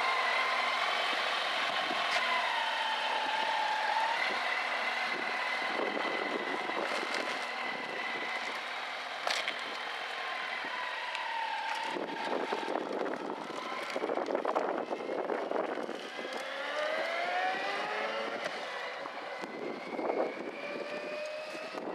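Kawasaki Versys 1000 LT motorcycle's inline-four engine running as the bike pulls away at low speed and rides off. In the second half its note rises several times as it accelerates.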